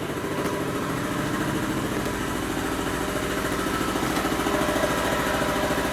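Bead-blasting equipment running steadily: a low, rapid pulsing drone with an even hiss over it, growing slightly louder toward the end.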